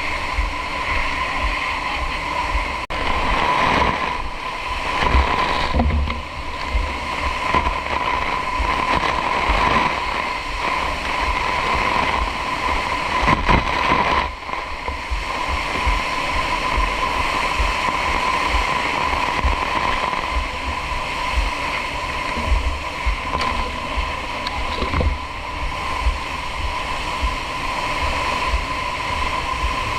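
Water spraying from fire hoses: a steady rushing noise with a constant tone running beneath it.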